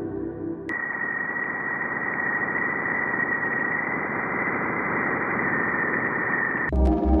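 Hissing radio-style static with a steady high whistle running through it, of the kind presented as a recorded sound from space. It starts abruptly after a moment of ambient music and cuts off suddenly into synthesizer music near the end.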